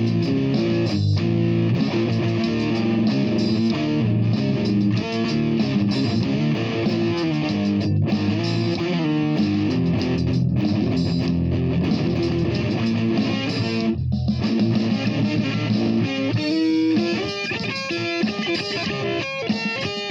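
Music: an electric guitar playing a continuous run of changing notes, with brief breaks between phrases.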